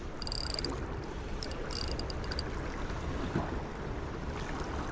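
Spinning reel's drag clicking as a hooked squid pulls line off, in two short bursts, the first just after the start and the second from about a second and a half to two and a half seconds in. Under it is a steady wash of water and wind.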